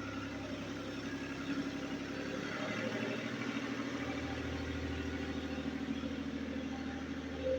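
Vacuum cleaner motor running steadily, blowing air out to push snow.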